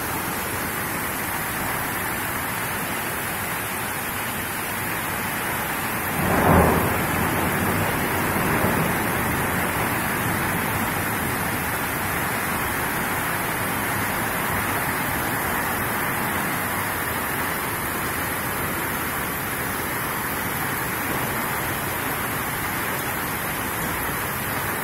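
Heavy rain pouring steadily in a thunderstorm, with a short, louder clap of thunder about six seconds in.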